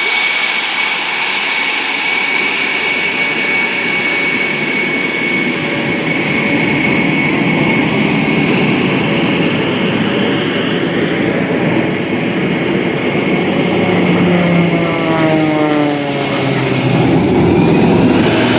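MXS-RH aerobatic plane's piston engine and propeller running at high power through an aerobatic display, a steady drone with a high whine. From about fourteen seconds in, the pitch slides as the plane changes speed and direction.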